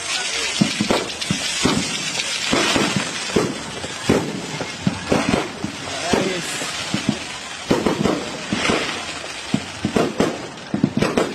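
Aerial fireworks going off in quick, irregular succession: many bangs and pops overlapping one another, over the voices of a crowd.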